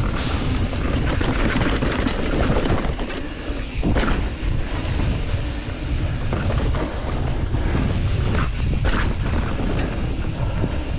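Steel hardtail mountain bike (Norco Torrent) rolling over a dirt trail: steady tyre noise and rattling of the bike, with a few knocks from bumps around four seconds in and again near nine seconds.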